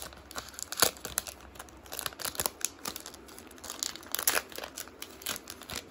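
Hands peeling tape off a hockey card pack and tearing its plastic wrapper open: irregular sharp crackles of the wrapper, the sharpest about a second in.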